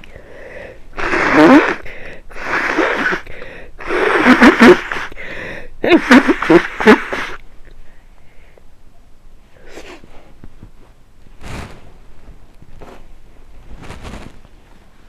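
A person with a head cold sneezing: a run of loud, voiced sneezes packed into the first seven seconds or so, then a few much fainter short sounds.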